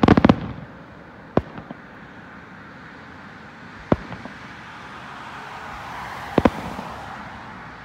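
Distant aerial firework shells bursting: a quick cluster of sharp bangs at the start, then single bangs about a second and a half and four seconds in, and a close pair of bangs about six and a half seconds in.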